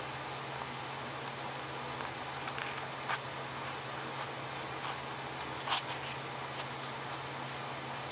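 A small piece of foam being trimmed and handled by hand: scattered light clicks and short scratchy cuts, the sharpest a few seconds in and again near six seconds, over a steady low hum.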